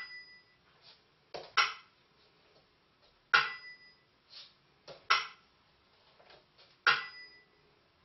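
Burmese si (small bell-cymbals) and wa (bamboo clapper) keeping the dance beat. A ringing si strike comes about every three and a half seconds, each followed about a second and a half later by a quick dry double clack of the wa.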